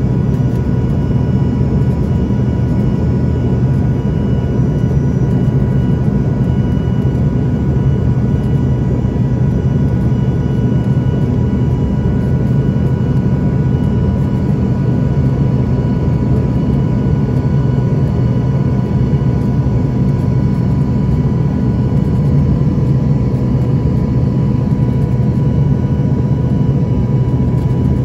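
Embraer ERJ-145 cabin noise in the climb after takeoff: its tail-mounted Rolls-Royce AE3007 turbofans and the airflow give a steady low rumble with a thin, steady whine on top, unchanging throughout.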